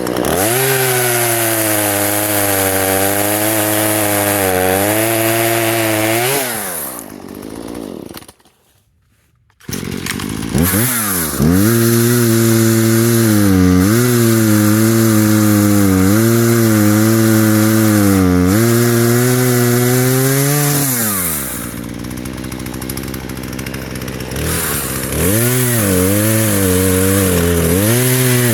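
Small two-stroke chainsaw, a Husqvarna 120, cutting storm-downed maple limbs: the engine runs at full throttle with its pitch wavering as the chain bites, and drops back to idle twice. About eight seconds in it falls silent for over a second, then runs up again.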